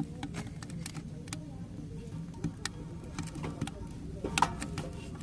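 Wood fire crackling in a wood-burning stove: irregular sharp pops and snaps over a low steady rumble, with a louder pop a little after four seconds in.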